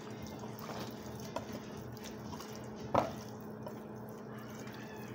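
Hands working seasoning into raw tilapia fillets in a glass baking dish: soft wet squishes and drip-like ticks, with one sharper wet smack about three seconds in. A steady low hum runs underneath.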